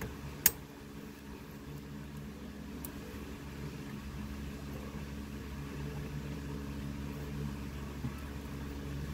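Steady low mechanical hum, with one sharp click about half a second in and a couple of faint ticks later.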